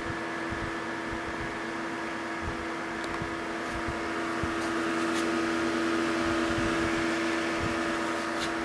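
Electric cooling fan of a cylinder-barrel test jig running steadily, blowing air over the barrel: a constant motor hum over an even whoosh of air. It grows slightly louder about halfway through.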